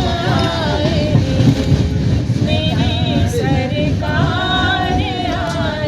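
Women singing a Hindu devotional bhajan to Ram, with wavering sung lines, over the steady low rumble of a moving train.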